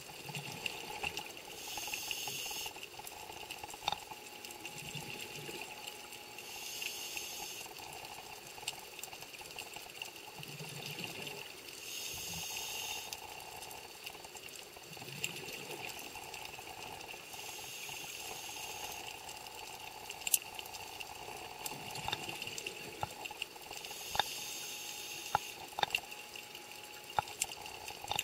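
Underwater sound of scuba breathing: a hiss from the regulator on each inhalation, roughly every five seconds, alternating with low bubbling as the diver breathes out, plus scattered sharp clicks.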